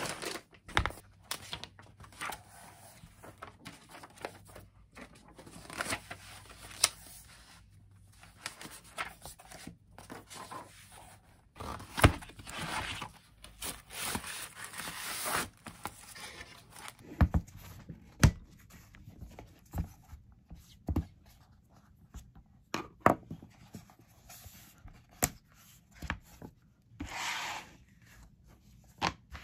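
Packaging of a new tablet case being opened by hand: cardboard and paper rustling and tearing, with scattered sharp clicks and taps as the box and case are handled. Longer stretches of rustling come about twelve seconds in and again near the end.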